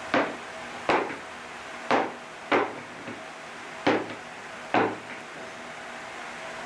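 Strips of an end-grain hardwood board (walnut, purpleheart and maple) being flipped and set down against each other on a wooden workbench: six sharp wooden knocks spread over about five seconds, then only a steady low background hum.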